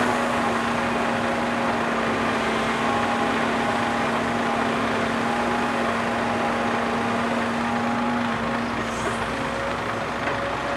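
Heavy diesel earthmoving machinery running steadily, a constant engine drone with a humming tone that fades out about eight seconds in.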